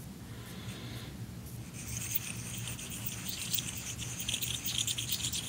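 Clipper blade rubbed flat against a metal rub block, a soft scratchy scraping of steel on steel as it is worked back and forth in circles, faint at first and louder from about two seconds in. This is a rub-block test: the rubbing burnishes a rub pattern onto the blade that shows whether it was sharpened flat.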